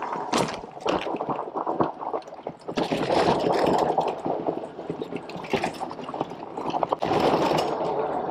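Full-suspension e-bike ridden fast on a dirt trail: tyre noise over loose dirt with rattles and knocks from bumps, swelling louder about three seconds in and again near the end.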